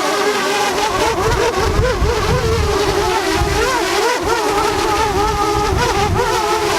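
DJI Mavic Air's propellers whining, the pitch wavering up and down as the motors speed up and slow down against strong wind while it tries to land. Gusts of wind rumble on the microphone from about a second in.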